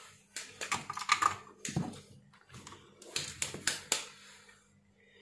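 Two short runs of rapid light clicks and taps from hands handling an opened car stereo head unit and its wiring on a workbench.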